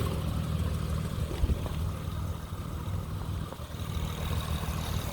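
Honda car engine idling steadily with a low, throbbing exhaust note.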